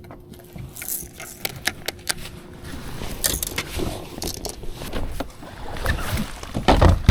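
Handling noises on a fishing boat: scattered sharp clicks and knocks with rustling, busier in the second half, and a heavier thump just before the end.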